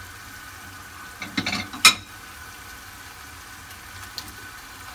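Chicken in tomato sauce sizzling steadily in a pan. Metal tongs clack against the pan several times just over a second in, the sharpest strike near two seconds.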